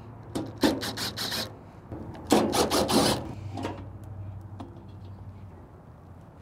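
Cordless drill-driver backing screws out of the sheet-metal bottom plate of a pellet grill's hopper, running in short rasping bursts. A looser run comes in the first second and a denser one about two seconds in.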